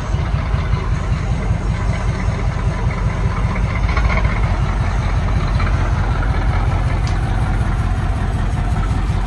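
Diesel engine of a rebuilt cab-over truck running steadily as the bare-chassis truck drives slowly forward. It is a deep, even drone that gets slightly louder a few seconds in.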